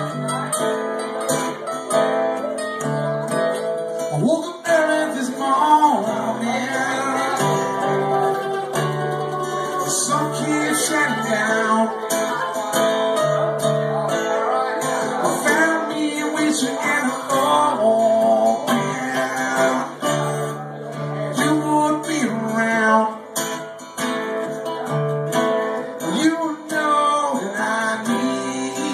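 Mandolin and acoustic guitar playing together live, the guitar strumming while the mandolin picks quick melodic runs.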